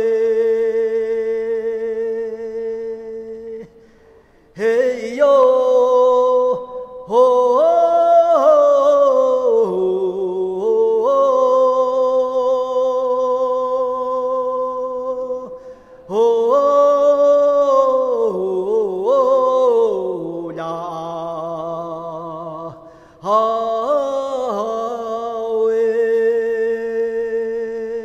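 A solo voice chanting without accompaniment: long held notes that slide up and down between pitches, in four long phrases with short breaths between them, fading out near the end.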